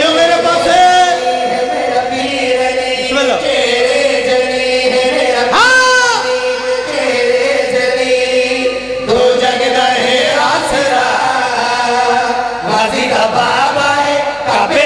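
Men chanting a qasida (devotional poem) into microphones, one voice leading and another joining, in long held, wavering notes. About six seconds in, one voice swoops up to a high held note.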